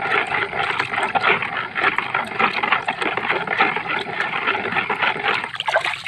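Water sloshing and swishing in a plastic basin as a hand stirs fertilizer into it to dissolve it, with steady splashing that eases off near the end.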